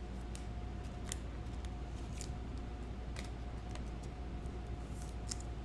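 Faint, scattered light clicks and taps, a handful spread over a few seconds, from trading cards and packs being handled, over a steady low hum and a faint steady tone.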